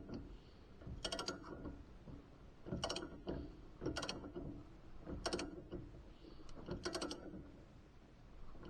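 Ratchet wrench clicking in short strokes, a quick burst of clicks roughly every second, often in pairs.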